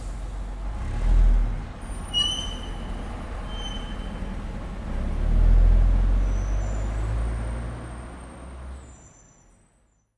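Bus with a heavy low engine rumble that swells twice, and short high-pitched brake squeals about two seconds in and again near four seconds, with fainter squeals later. The rumble fades out near the end.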